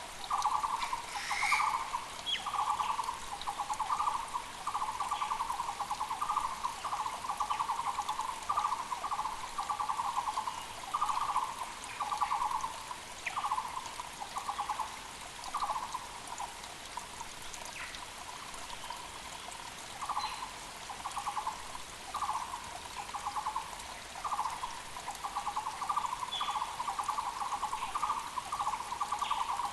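Taiwan barbets (Muller's barbets) calling: fast runs of short repeated notes in bouts, overlapping at times. Behind them is the steady rush of a mountain creek, with brief higher chirps from other small birds.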